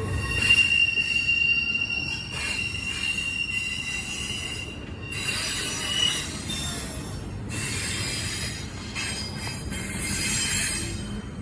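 CSX intermodal freight train rolling through a grade crossing: a steady low rumble from the cars, with the wheels squealing in a thin high tone through the first half.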